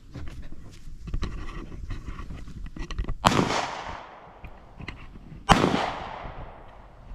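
Two gunshots about two seconds apart, each cracking sharply and then echoing away slowly off the range berms.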